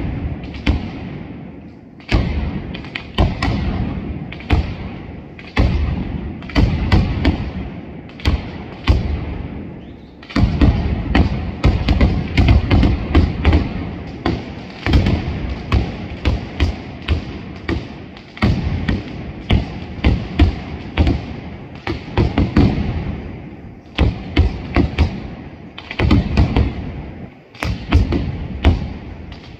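Engraellat mascletà: heavy weights packed with black powder, set on the ground and linked by a traca fuse string, exploding in rapid volleys of bangs. The bangs come in surges, with a brief lull every few seconds.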